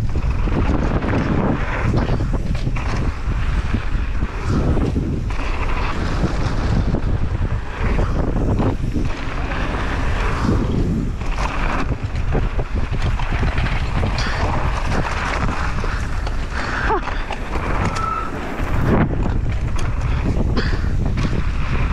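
Wind buffeting the microphone of a downhill mountain bike descending a dirt trail, with tyre noise and the frequent rattles and knocks of the bike over bumps.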